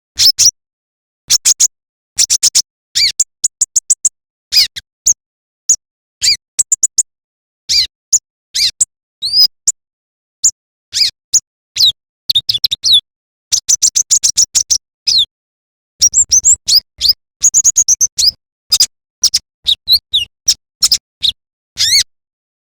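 Kolibri ninja (konin) sunbird singing a fast, loud run of sharp high chirps and short trills, with quick clusters of notes in the middle.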